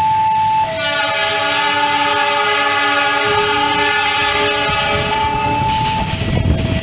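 Diesel locomotive horn sounding one long chord of several notes for about four seconds, starting just under a second in. Behind it a two-tone warning alarm keeps alternating, and near the end a low diesel engine rumble grows louder as the locomotive passes.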